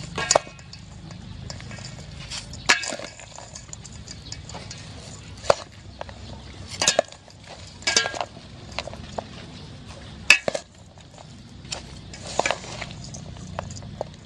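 Metal spoon and wooden spatula tossing a mango and sea snail salad in a stainless steel bowl. The spoon knocks and clinks against the steel bowl at irregular moments, a second or two apart, with softer scraping between.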